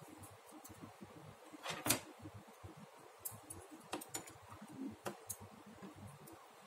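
Knitting needles being handled and worked: faint, irregular light clicks as the needles knock together, the loudest about two seconds in.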